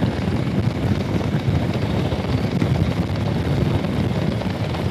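Harley-Davidson Street Glide's V-twin engine running steadily at cruising speed, under 3,000 rpm, mixed with wind rushing over the microphone.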